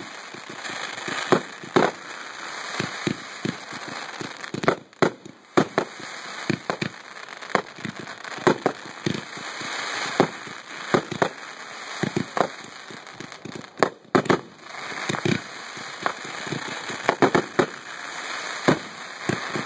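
Consumer firework cakes firing in rapid succession: many irregular launch thumps and shell bursts overlapping, with a continuous crackling hiss between the bangs. There are short lulls about five and fourteen seconds in.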